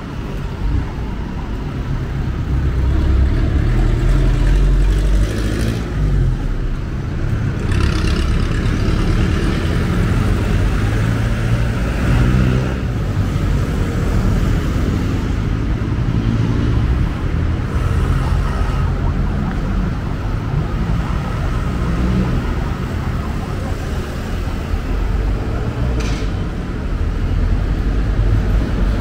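City street traffic: a steady low rumble of passing vehicle engines and tyres, with a few brief higher bursts along the way.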